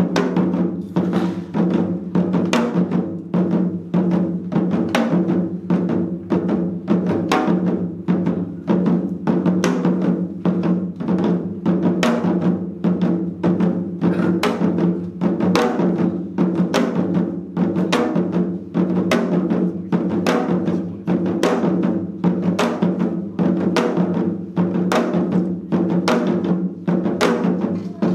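Janggu, Korean hourglass drums, played together by four seated drummers in a seoljanggu piece: a steady, continuous rhythm of sharp stick and mallet strokes on the drumheads.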